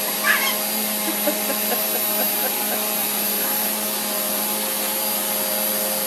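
Vacuum cleaner running steadily: a constant motor hum with a thin high whine over it.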